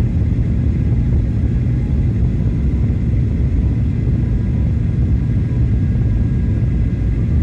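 Airliner cabin noise during descent: a steady low rumble of engines and airflow, with faint steady whine tones above it.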